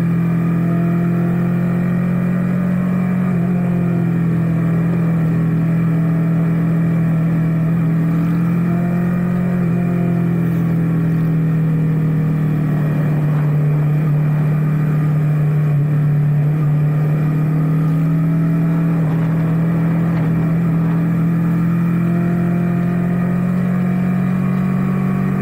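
Motorcycle engine running at fairly steady revs while riding, a constant drone whose pitch drifts gently up and down, with wind rushing over the camera's microphone.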